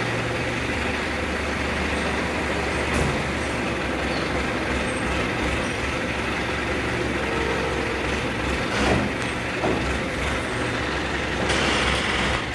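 The diesel engine of an ACE 12XW hydra crane running steadily, with a few light knocks. A brief hiss comes near the end.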